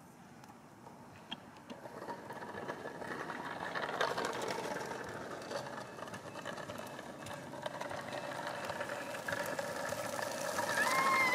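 Kid Trax Rideamals electric ride-on toy horse running, its small drive motor whirring steadily and its plastic wheels rolling on asphalt. Near the end a recorded horse whinny plays from its speaker.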